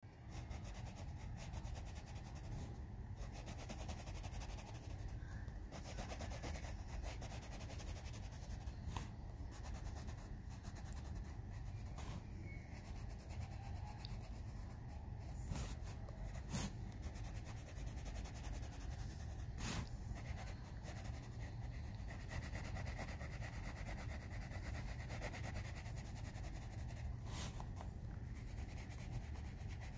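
Coloured pencil shading on paper: a steady scratchy rubbing, with a few sharp clicks scattered through.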